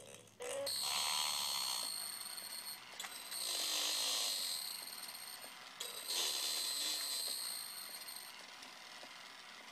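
Circuit-bent newer-model Furby's speaker giving harsh, distorted electronic noise with a steady high-pitched whine, swelling up three times and fading toward the end. Its face mechanism whirs and clicks under it as the ears and eyelids twitch.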